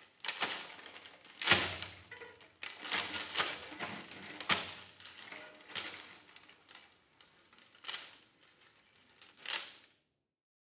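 Chains of metal safety pins hung on a cello rattling and scraping against its body and strings as they are handled, in irregular jangling bursts, the loudest about one and a half seconds in. The sound cuts off suddenly just before the end.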